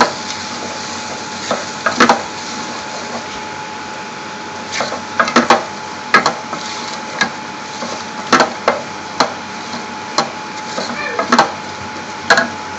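Wooden spoon stirring a thick onion-and-spice curry paste in a stainless steel pot, knocking against the pot's sides and base at irregular intervals over a steady hiss.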